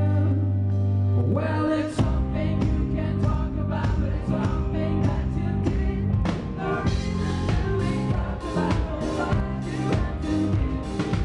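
Live pop-rock band playing with singing: a held low chord, then drums and the full band come in about two seconds in with a steady beat.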